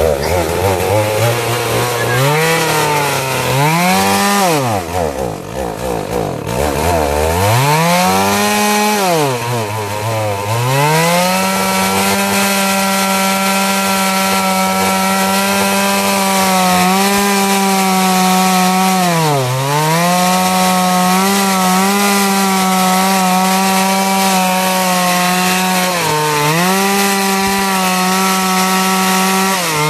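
Chainsaw revving twice, up and back down, then held at high speed cutting through jackfruit wood, its pitch dipping briefly a few times in the cut.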